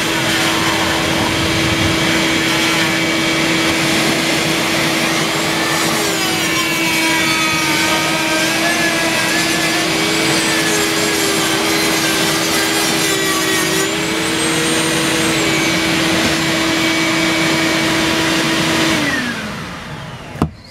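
Dremel rotary tool with a small sanding drum grinding the cut fiberglass edge of a speaker hole, its pitch wavering as it bears on the edge, over the steady hum of a shop vac sucking up the dust. Near the end the motors wind down, falling in pitch, followed by a sharp click.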